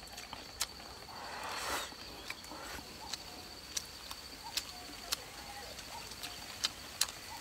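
Close-miked eating sounds: scattered sharp wet mouth clicks and smacks while chewing, with a louder sucking slurp about a second in. Behind them runs a steady high-pitched insect trill.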